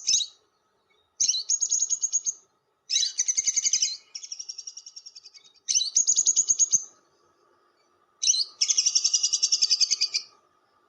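Lovebird chattering in bursts of rapid, shrill notes, each burst one to two seconds long with short pauses between, the longest near the end. The long chattering call used as a lure to draw other lovebirds in.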